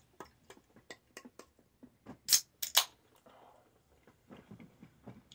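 A run of light ticks, then a carbonated energy drink can being cracked open: two sharp hissing bursts about half a second apart as the tab breaks the seal, followed by a faint fizz.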